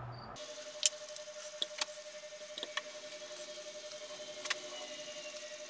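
A few faint, sharp metallic clicks and clinks, spaced unevenly, as the lathe spindle and gear parts are handled, over a faint steady tone.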